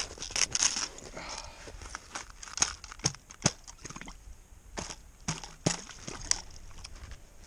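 Irregular crunches and sharp clicks of gloved hands working in snow and slush at an ice-fishing hole beside a tip-up, with the loudest a little after two and a half seconds and around three and a half seconds in.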